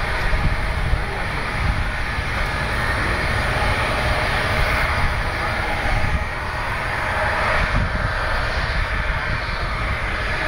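Jet engines of a Boeing 777 airliner running steadily at idle while it holds short of the runway.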